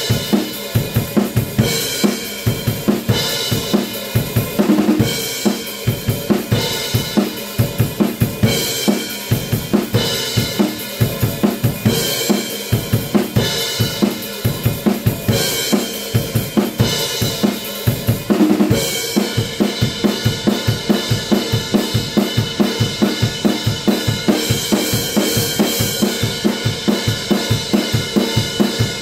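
Acoustic drum kit played in a driving rock groove: kick and snare under steady cymbals, with tom fills about 5 and 18 seconds in. After about 19 seconds the pattern shifts to a denser, more even cymbal-led beat.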